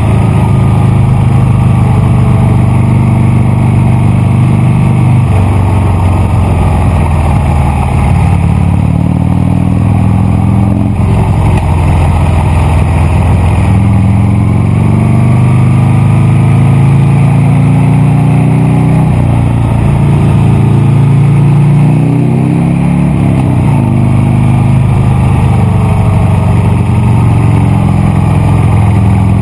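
Buell Lightning XB9 SX's air-cooled V-twin engine running loud under way, its revs climbing and then dropping again and again, as through a series of gear changes.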